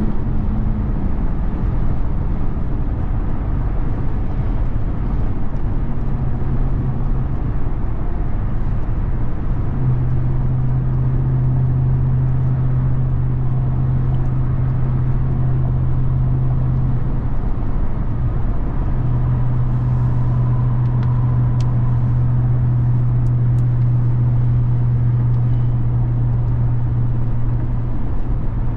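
2021 RAM 1500 TRX pickup's supercharged 6.2-litre Hemi V8 heard from inside the cab while driving at a steady pace. It holds a low, steady drone over road noise, easing off briefly about two-thirds of the way through and then coming back.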